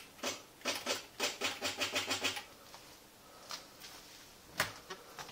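Commodore SQ-2000 electronic typewriter's mechanism clicking in a rapid, even run of about seven strokes a second for some two seconds after a key is pressed, over a faint motor hum. A few single clicks follow, the loudest near the end.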